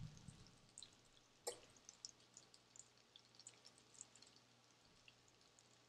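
Faint, scattered crackling and popping of breaded pork chops searing in hot olive oil and butter in a skillet, with one slightly louder crackle about a second and a half in.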